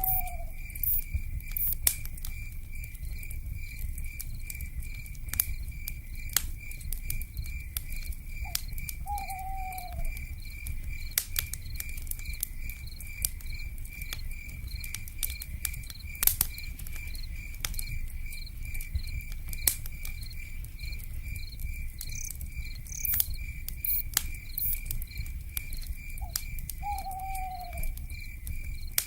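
Campfire crackling with irregular sharp pops over a low steady rumble, with a steady pulsing insect trill in the night forest. An owl gives a short falling hoot three times: at the start, about nine seconds in, and near the end.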